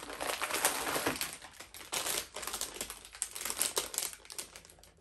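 Crinkly plastic snack packets rustling and crackling as they are rummaged through and one bag is lifted out and handled: a rapid, irregular run of small crackles.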